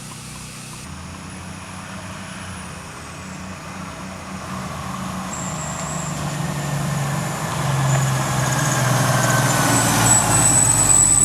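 Heavy truck engine running and growing steadily louder, as of a truck approaching or pulling up. A thin high whine comes in during the second half.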